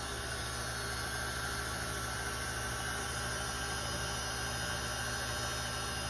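Steady mechanical hum of a small electric motor running at an even speed, with no change in pitch or level.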